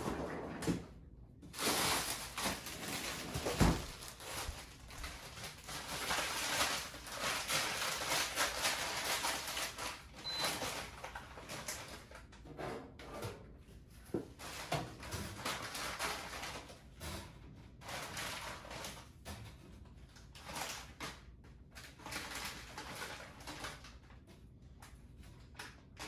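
Kitchen handling noises as the air-fryer toaster oven is set up to cook fries: rustling, clattering and knocks of pans and the oven door. A single short electronic beep from the oven's controls comes about ten seconds in, and the handling thins out in the second half.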